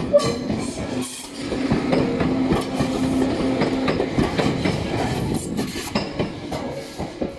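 Tobu electric commuter train passing close by, its wheels clacking irregularly over the rail joints, with a steady hum through the middle of the pass.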